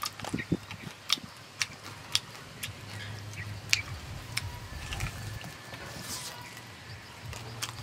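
Close-up eating sounds: scattered wet clicks of chewing and lip-smacking on roast pig, with a faint steady low hum underneath.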